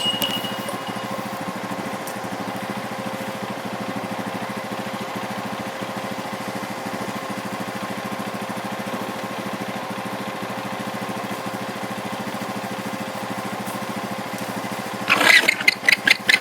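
An engine runs steadily with an even drone. Near the end, a llama's alarm call breaks in over it: a loud, rapid series of high, pulsing cries.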